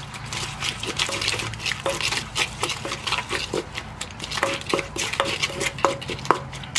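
Wooden pestle pounding and mashing papaya salad ingredients in a clay mortar, a steady run of wet knocks about three a second, while a plastic spoon turns the mix.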